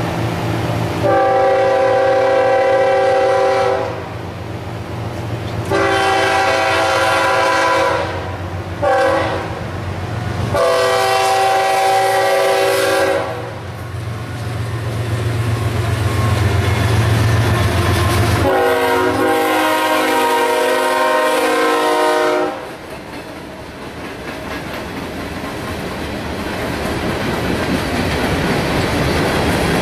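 A CSX freight train's lead locomotive, a GE ES40DC, sounding its multi-chime horn in the grade-crossing signal: two long blasts, a short one and a long one, then another long blast a few seconds later as it reaches the crossing. The diesel locomotives rumble past, and the hopper cars follow with rising wheel clicking over the rail joints.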